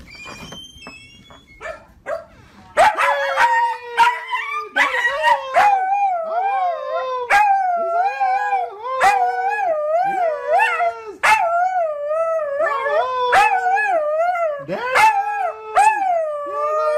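Siberian Husky puppy howling and yowling excitedly in greeting as its owner comes home: a few faint high whines at first, then from about three seconds in a loud, continuous call that warbles up and down, with sharp clicks between the calls.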